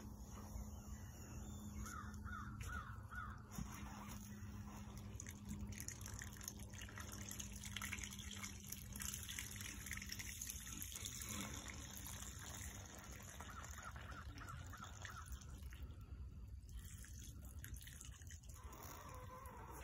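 Fluid trickling and dripping onto straw as the foaling mare's waters break, a faint hiss from about six to twelve seconds in. Two short series of caws, one about two seconds in and one around fourteen seconds, sound over a steady low rumble.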